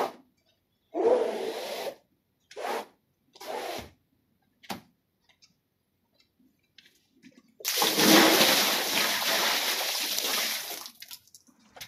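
A floor squeegee is pushed across a soapy, wet rug in a few short swishing strokes. Then a bucket of water is poured out over the rug, splashing for about three seconds.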